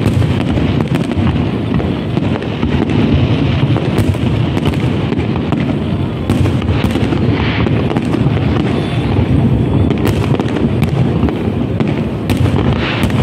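Aerial fireworks going off in quick succession: a dense, continuous barrage of shell bursts with many sharp cracks throughout.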